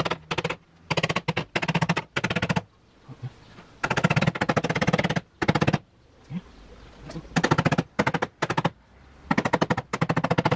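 Small hammer tapping rapidly and lightly along the insect screen's top mounting rail to seat it in the door frame, in a series of quick runs of taps with short pauses between.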